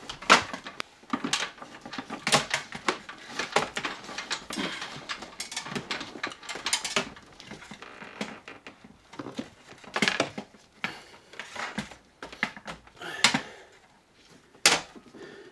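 Electrical wires being hauled up through a hole in a wooden wall with vice grips: irregular scraping, rubbing and clicking, with a few sharper knocks scattered through.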